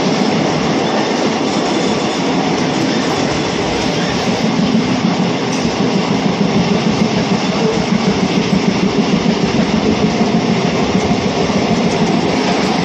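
Passenger train running along the track, heard from inside a coach at an open window: a steady, loud rumble and rattle of the wheels and carriage, its loudness pulsing more quickly in the second half.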